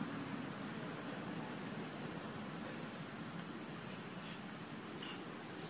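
Outdoor ambience: a continuous, steady high-pitched insect drone over a low, even background hiss.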